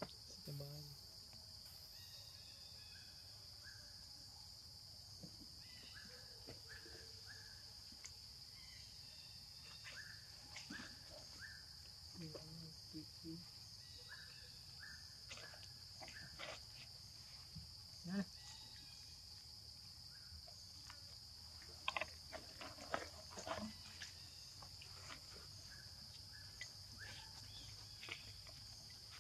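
Faint, steady high-pitched chirring of an insect chorus, like crickets, with scattered soft clicks and rustles over it and a few sharper knocks around the middle.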